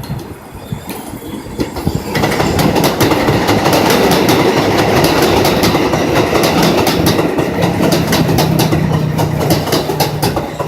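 R188 subway train on the 7 line running past the platform, wheels clattering over the rail joints in a regular click-clack. It grows much louder about two seconds in, and a steady low motor hum joins about six seconds in.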